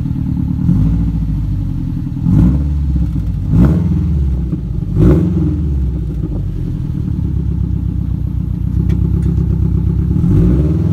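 2017 Subaru WRX STI's turbocharged flat-four through a catless downpipe and muffler-deleted cat-back exhaust, running at idle and revved up in four short blips over the first five seconds. It then runs steadily and rises again near the end.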